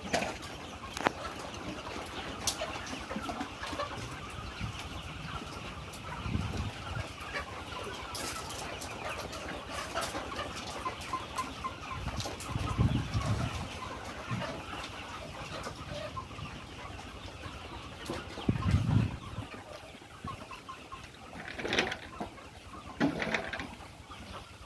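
A flock of layer chicks peeping and chirping continuously, with a few short low bumps among them.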